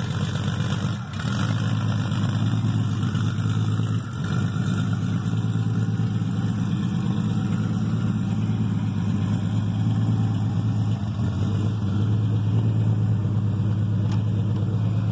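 Porsche 934 turbo's air-cooled flat-six idling steadily, heard from behind at the exhaust pipes, with a few brief small dips in level.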